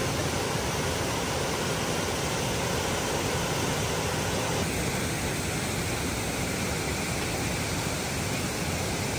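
Steady, even rush of water, like water pouring at a dam.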